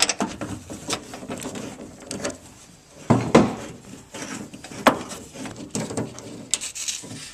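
Irregular metallic clicks and knocks of a hand tool working on the two 10 mm nuts that hold the door handle inside the door, with a couple of louder knocks in the middle.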